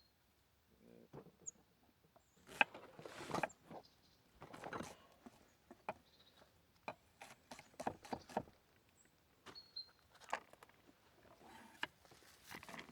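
Irregular rustling, scraping and light knocks of things being handled, with a few faint short high chirps.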